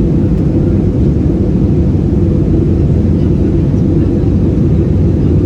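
Steady low cabin roar of an Airbus A320-216 under engine power, heard from inside the passenger cabin.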